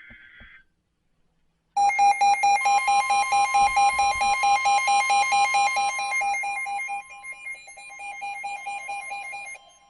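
NOAA Weather Radio alert coming in. It begins with the buzzy tail of a SAME data header burst. About two seconds in, a weather radio receiver's alarm starts beeping rapidly and loudly, with the broadcast's steady long warning tone sounding underneath. The beeping gets quieter about seven seconds in.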